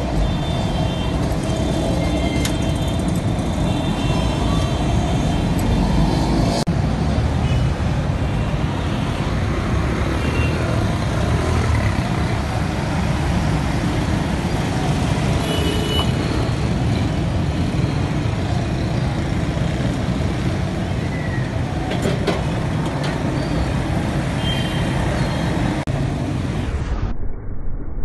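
Steady street traffic noise, a dense rumble of engines and road noise, with a few short high tones in the first seconds. The sound changes abruptly about six seconds in and again near the end.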